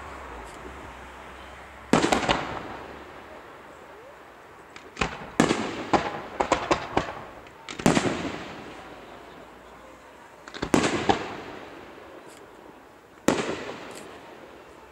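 Aerial firework shells bursting, each a sharp bang that echoes and fades. There is a burst every few seconds, with a quick run of several reports in the middle.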